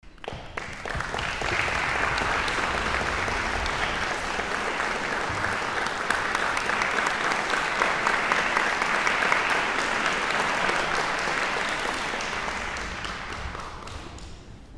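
Audience applauding: steady, dense clapping that builds within the first second or two and dies away near the end.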